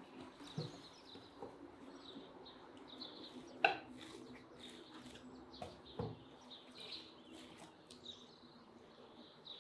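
Forks clicking and scraping on clay plates as two people eat, with a sharp clink about three and a half seconds in. Small birds chirp in the background throughout.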